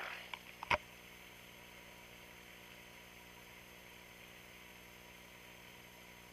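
Faint steady drone of a light aircraft's piston engine idling, heard in the cockpit. In the first second there is rustling and a couple of sharp clicks from headsets being handled and taken off.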